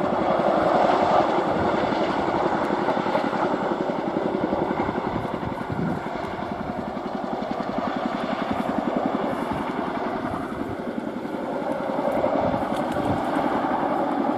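Boeing CH-47F Chinook tandem-rotor helicopter in low flight, climbing away, its two rotors beating in a rapid, steady chop over the noise of its twin turboshaft engines.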